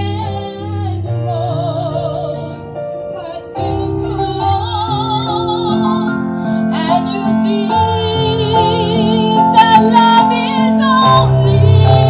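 Live music: a woman sings with vibrato, accompanying herself on a Yamaha electric keyboard, amplified through PA speakers.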